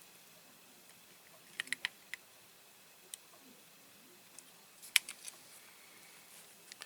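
Light clicks and taps of a small die-cast toy truck and its crane hook being handled: a quick run of clicks about one and a half seconds in, scattered single clicks after, the sharpest one about five seconds in.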